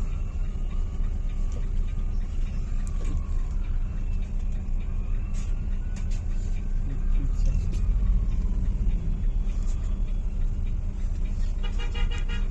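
Motor vehicle road noise: a steady low rumble of engine and tyres, with faint rising and falling whines, and a pulsing tone that sets in near the end.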